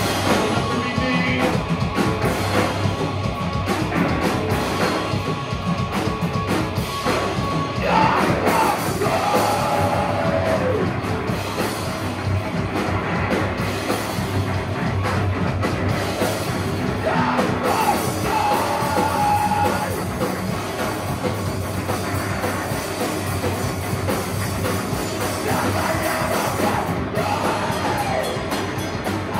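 A live heavy rock band playing loud, with drums and guitars, and vocals coming in three times over the music.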